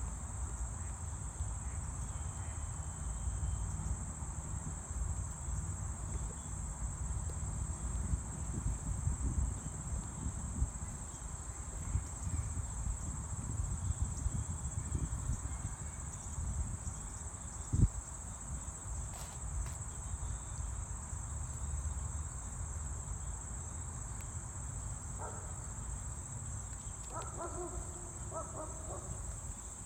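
Steady high-pitched trilling of insects such as crickets or cicadas, running on without a break, over a low rumble of wind on the microphone. A single sharp knock about 18 seconds in, and a few short calls near the end.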